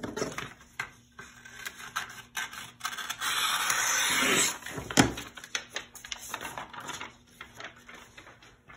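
Scissors cutting through sublimation transfer paper: a run of quick snips and paper crackle, with a denser steady stretch of cutting about three seconds in and a single sharp knock about five seconds in.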